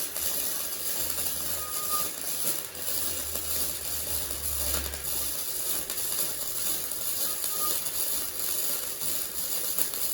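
Flux-core welding arc from a Titanium Easy-Flux 125 welder running on 16-gauge mild steel: a steady, dense crackle that cuts off suddenly at the very end.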